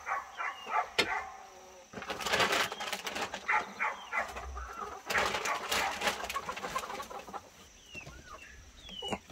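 Chickens clucking in short calls, with two longer stretches of rustling, scraping noise in between.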